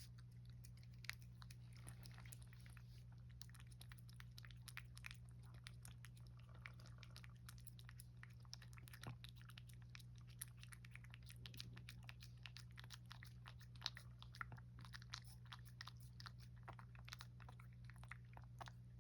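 Cat licking a Churu lickable treat from a squeeze tube: faint, irregular wet clicks of the tongue, over a steady low hum.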